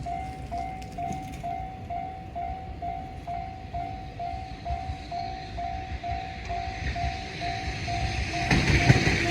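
Japanese level crossing warning bell ringing its steady electronic ding-ding, a little under three strikes a second, while a train approaches, its running noise rising over the bell near the end.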